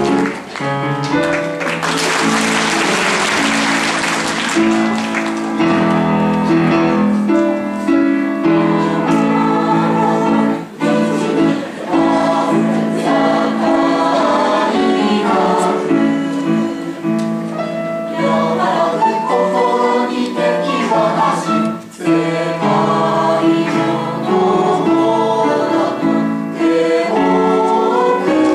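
Amateur choir singing a Japanese choral song in sustained, changing chords. About two seconds in, a dense rush of noise lasting a couple of seconds rises over the singing.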